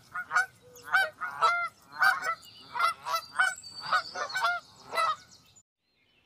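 A flock of Canada geese honking, a quick overlapping series of short calls that stops shortly before the end.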